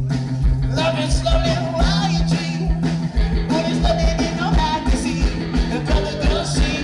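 Background music with a steady beat, bass notes and a singing voice.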